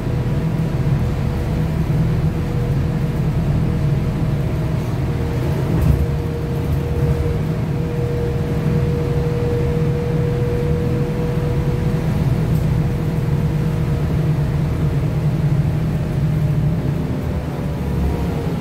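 Cabin noise inside a Trolza-5265 Megapolis trolleybus under way: a steady low rumble from the body and tyres with a thin, even electric whine from the traction drive. There is a single knock about six seconds in, and the whine starts to rise in pitch near the end.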